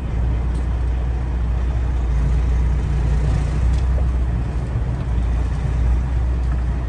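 Freightliner Classic XL semi-truck's diesel engine running with a steady low drone, heard inside the cab as the truck creeps through a tight turn.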